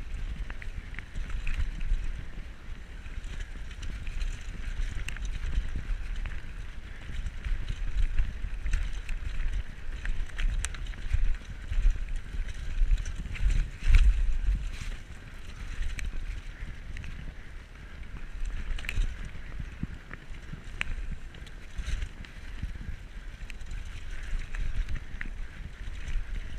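Diamondback Recoil 29er mountain bike ridden over a dirt singletrack, heard from a helmet-mounted GoPro: wind buffeting the microphone and the tyres rumbling over the ground, with scattered sharp clicks and rattles from the bike over bumps. The rumble swells loudest about halfway through.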